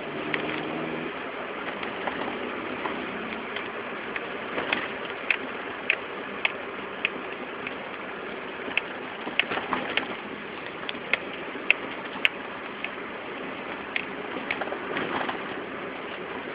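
Wheel hub making an abnormal noise: irregular sharp clicks and ticks over a steady noisy background.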